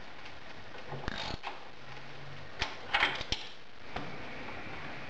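A handful of separate sharp metal clicks and clinks, loudest in a small cluster about three seconds in: a socket wrench and bolts being handled while the floorboard bolts are fitted.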